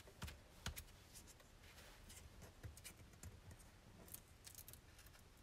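Near silence, with a few faint clicks and rustles of hands pressing and handling black cardstock on a cutting mat.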